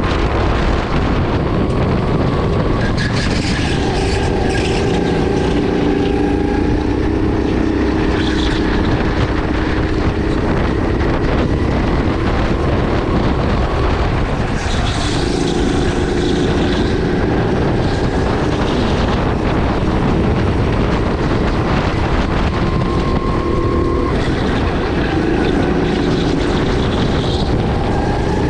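Sodi RX8 kart's 270cc LPG engine running at speed, its pitch rising and falling as the throttle opens and closes through corners, over a heavy rush of wind and road noise.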